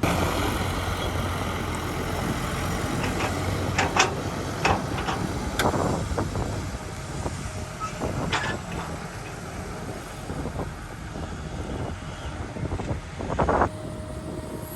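Diesel engine of heavy earthmoving machinery running steadily, with several sharp knocks and clanks of metal and rock scattered through it.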